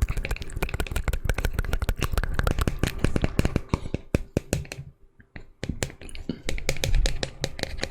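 Close-miked ASMR trigger sounds: a dense run of crisp crackles and clicks, with a short pause about five seconds in.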